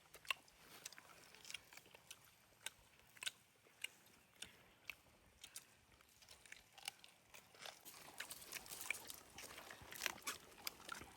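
Someone chewing and crunching food close by: faint, irregular crunches and clicks, a little busier near the end.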